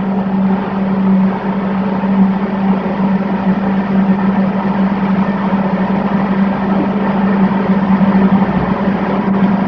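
Steady machine hum: one strong low drone under an even hiss, unchanging throughout.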